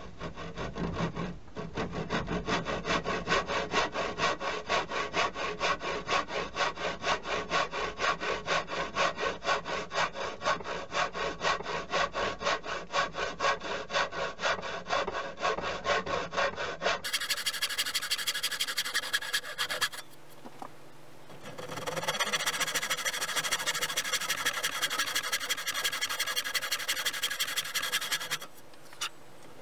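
A hand tool worked on wood in quick, even back-and-forth strokes. About 17 s in the sound cuts to a smoother, more continuous scraping, broken by two short pauses.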